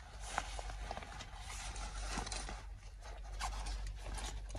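Faint rustling and scraping of a Kipling nylon shoulder bag being handled, with a few light clicks.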